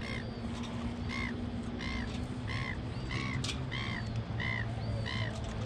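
A bird calling over and over: about eight short, evenly spaced calls, roughly three every two seconds.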